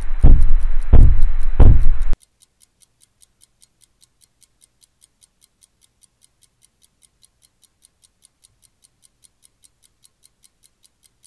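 Cartoon sound effects: a loud, low rumbling crash with four heavy thumps over about two seconds, then a faint, quick, even clock ticking.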